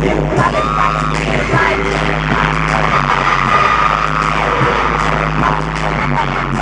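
Loud live K-pop dance track played over an arena sound system, with sung vocals over a heavy, steady bass line.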